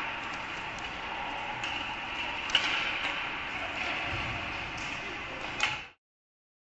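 Ice hockey game in an arena: a steady wash of skates on the ice and crowd, with sharp clicks of sticks and puck, the loudest about two and a half seconds in and another near the end. The sound then cuts off suddenly.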